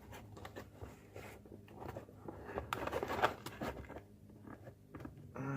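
Fingers scratching, tapping and scraping at a cardboard toy box while feeling for a way to open it: a run of irregular small clicks and rustles.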